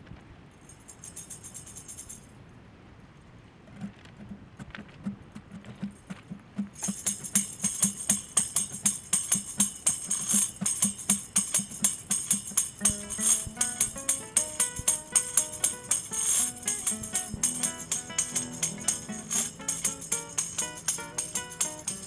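A tambourine is shaken and struck in a steady cueca rhythm. It starts softly over faint rushing river water and becomes loud about seven seconds in. An acoustic guitar joins about halfway through, playing notes under the jingles.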